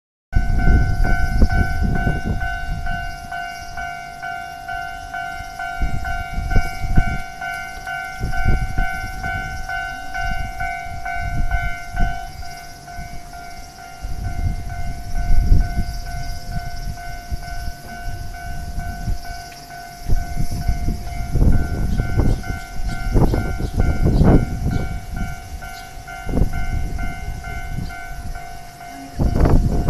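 Japanese level-crossing warning bell ringing steadily in a repeating electronic ding, with its higher overtones dropping out about halfway through. Under it a train runs over the crossing, with a low rumble and knocks that grow heavier in the second half and a loud burst near the end.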